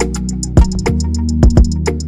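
Background music with a steady beat: drum hits over a sustained bass line and quick ticking up high.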